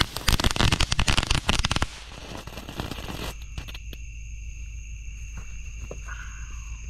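Red Rhino Kids Garage novelty firework, a small car-shaped ground fountain, spraying sparks with a dense rapid crackle over a hiss that stops about two seconds in.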